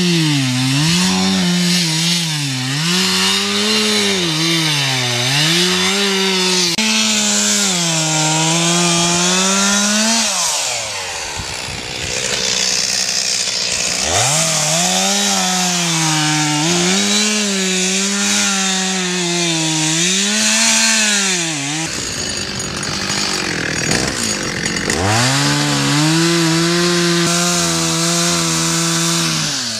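Chainsaw engine running, revving up and down again and again as it cuts. The engine tone drops away for a few seconds twice, about ten seconds in and again past twenty seconds, before it picks up again.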